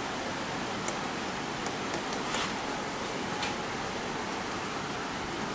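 Steady even hiss with a few light clicks and taps between about one and three and a half seconds in, from a metal fibre grip working against the steel combs of a comb sorter as cotton fibres are drawn out.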